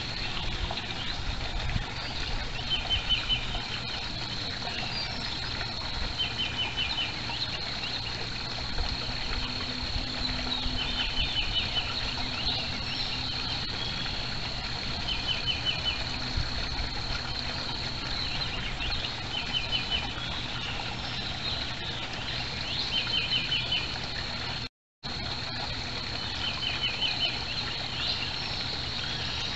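A small bird repeating a short, fast trill of six or seven notes every three to four seconds, over a steady high-pitched whine and background hiss. The sound drops out briefly near the end.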